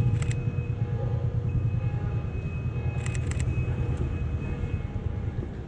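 Low, steady rumble of a vehicle engine on the street, easing off toward the end. Sharp camera shutter clicks come just after the start and again in a quick cluster about three seconds in.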